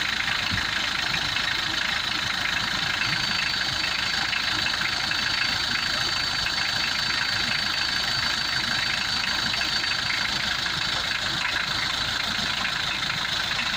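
Mitsubishi L200's 4D56 four-cylinder diesel engine idling steadily, heard close up in the open engine bay. A faint high whine joins in for several seconds in the middle.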